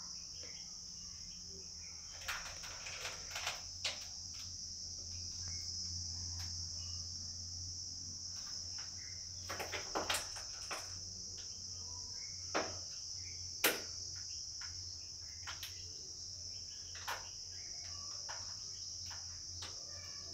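Steady high-pitched trilling of crickets, unbroken throughout, with a few scattered faint clicks and knocks over it.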